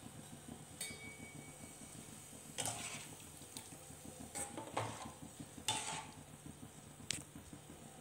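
A steel ladle stirring thin soup in an aluminium pot, clinking and scraping against the pot's side about six times at irregular intervals.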